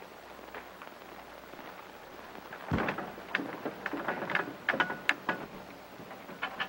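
Faint soundtrack hiss, then from about three seconds in a run of irregular knocks and clatters as a man moves about and handles things inside a wooden show wagon, with a brief creak near the end.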